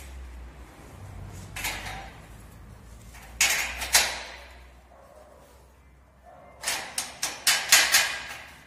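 Sharp metallic knocks on the steel tubing of a gate frame as it is tapped into alignment: a few single knocks, then a quick run of about six near the end.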